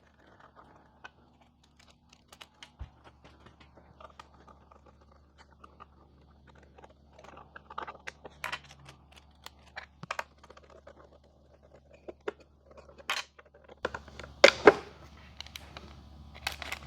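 Scattered small clicks and brief plastic rustling: small hex-head bolts with plastic washers being unscrewed with a 4 mm hex key and handled, and a small plastic parts bag rustling. The louder rustles come near the end.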